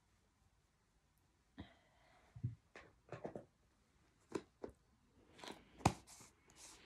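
A few separate clicks and knocks of makeup items being handled and set down, with a short rustle between them; the sharpest knock comes near the end.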